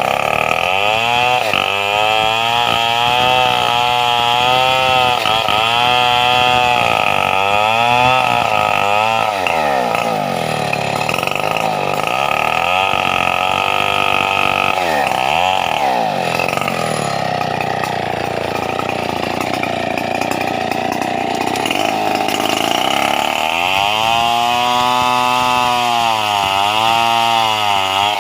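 Stihl 070 two-stroke chainsaw running hard while cutting teak wood, its engine pitch sagging and recovering again and again as the chain loads up in the cut. Around the middle it drops sharply a few times, then runs steadier before it resumes the wavering load near the end.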